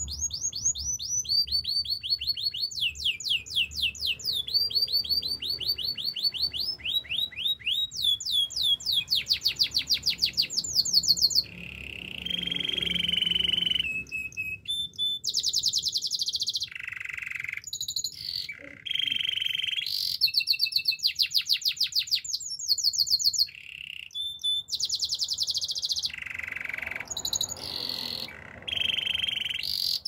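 Canary singing a long, varied song of rapid trills: fast runs of high repeated notes, some sweeping up and down, with a steadier, lower rolling phrase about twelve seconds in.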